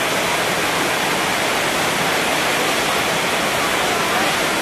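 Steady, loud rushing hiss that holds even throughout, with no breaks or changes.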